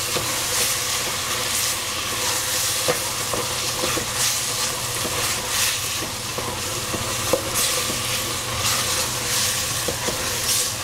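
Eggplant and zucchini sizzling in a stainless steel pot while a wooden spatula stirs them, the sizzle swelling with each stroke.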